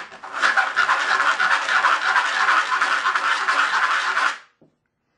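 150-grit sandpaper rubbed back and forth in quick strokes over the cut aluminum edge of a bottle, smoothing the rim so it seals well. The sanding stops abruptly near the end.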